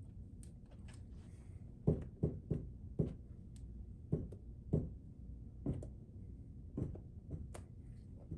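Palette knife pressing and dabbing thick oil paint onto a stretched canvas: a run of soft, irregular thumps starting about two seconds in.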